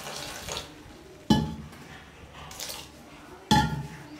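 Water pouring from a steel tumbler into a bowl of batter flour, ending within the first second. Then two sharp metallic clanks with a short ring, about two seconds apart, from steel kitchen utensils.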